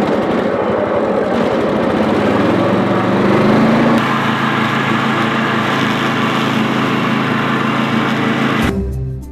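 Lawn mower engine running steadily, its pitch rising briefly about three seconds in before settling. It cuts off near the end as music comes in.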